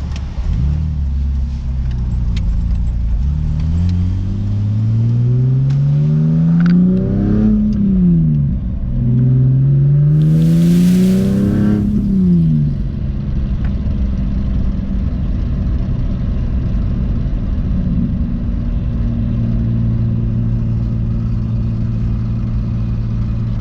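Car engine accelerating: the revs climb, drop briefly about seven seconds in, climb again, then fall away about twelve seconds in to a steady cruising hum. A brief rushing hiss comes in near the top of the second climb.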